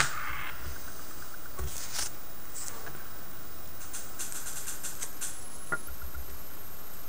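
Small hand tools and fine wire being handled at a desk: a sharp click at the start, then scattered faint clicks and rustles over a steady background hiss.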